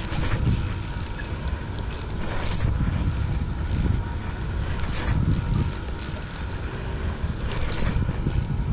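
Spinning reel being cranked while jigging, its gears whirring in short spells, over a steady low rumble.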